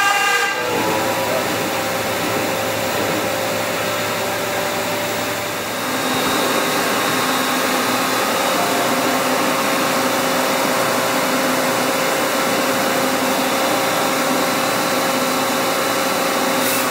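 Machine-shop machinery running: a steady whooshing noise with several faint steady whines. It dips briefly about five seconds in, then settles a little louder.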